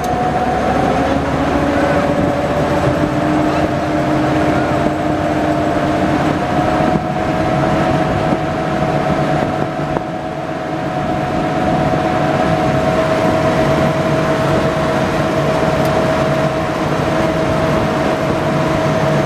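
WWII DUKW amphibious 'duck' vehicle's engine running under way on the water, a steady drone with a whine that steps up a little in pitch about a second in and again around six seconds in, with wind rushing over the open deck.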